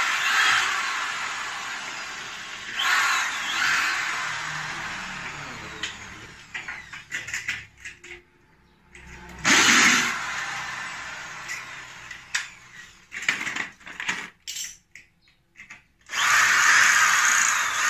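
Electric power drill drilling into an aluminium door frame, running in several short bursts with the longest near the end, with clicks and knocks of handling the frame in between.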